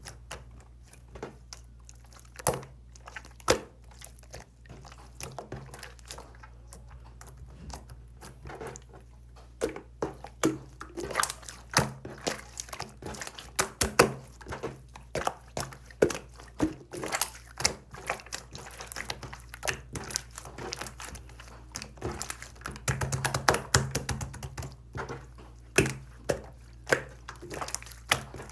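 Slime being squeezed and poked by hand, giving irregular sticky clicks and small pops that grow busier about a third of the way in.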